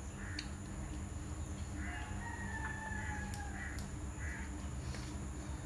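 A rooster crowing once, a drawn-out call about two seconds in, with a few short chirps around it, over a steady low hum.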